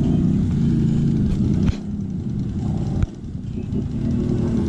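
Off-road vehicle engine running hard under load, with sudden drops in level about two and three seconds in before it builds back up.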